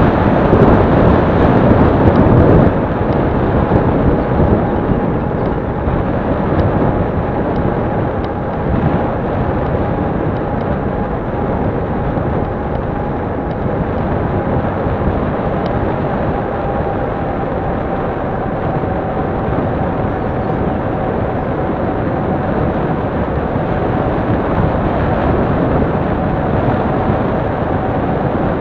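Steady riding noise from a camera on a moving bicycle: tyres rolling on asphalt and wind on the microphone, heaviest in the first three seconds, with a faint steady whine underneath.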